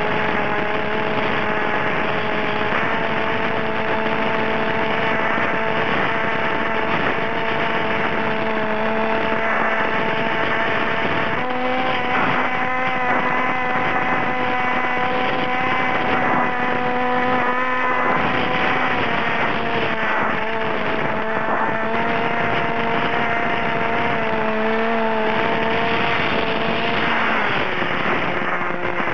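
Model aircraft's motor and propeller heard from the onboard camera: a steady drone with air rushing past. The pitch steps up about a third of the way in and drops back near the end as the plane comes down.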